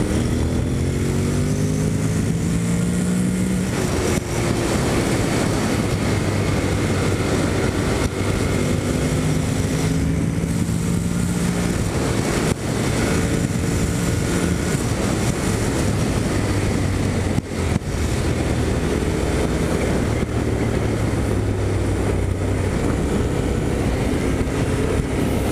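Honda NC750X's parallel-twin engine running on the move, its pitch climbing as it accelerates and dropping back at gear changes, over a steady rush of wind and road noise.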